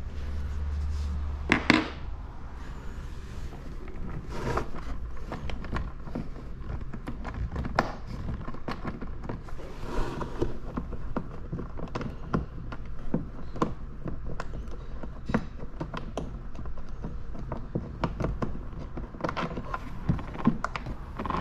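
Scattered clicks, taps and knocks of hard plastic body panels and bolts being handled and fitted on a Kawasaki Ultra 310 jet ski, with one louder knock about two seconds in.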